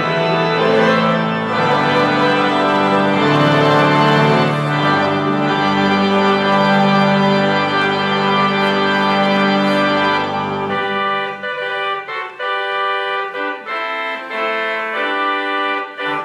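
Organ music: full held chords with deep bass. About two-thirds of the way through, the bass drops out and the organ goes on in shorter, separate notes higher up.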